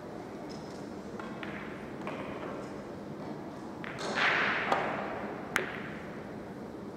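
Pool cue striking the cue ball, followed by a short swell of noise as it runs up the table, then two sharp clicks of pool balls colliding under a second apart.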